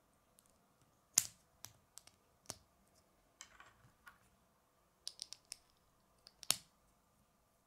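Small plastic Lego pieces clicking as they are handled and snapped together by hand: an irregular string of sharp clicks. The loudest come about a second in and near the end, with a quick cluster shortly before it and a short scuffle in the middle.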